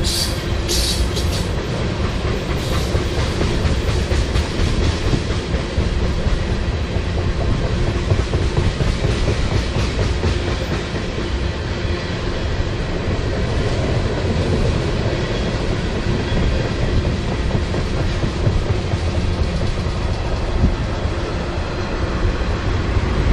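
Freight train tank cars rolling past: a steady rumble of steel wheels on rail with clickety-clack over the rail joints. A brief high wheel squeal sounds in the first second.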